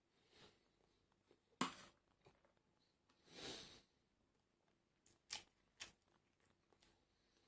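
Quiet close-up eating sounds: sparse chewing with a few sharp mouth clicks or crunches, the loudest about a second and a half in, and a short breathy swell near the middle.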